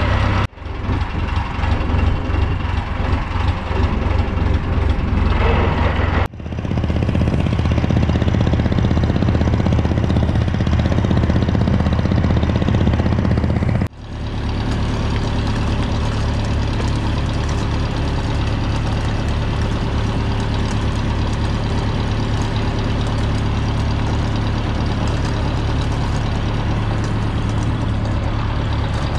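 A fishing boat's engine running steadily with a low hum, breaking off for a moment twice, about six and fourteen seconds in.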